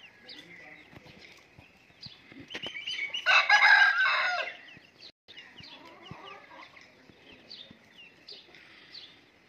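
A rooster crows once, about three seconds in, for a little over a second, over the scattered chirps of small birds.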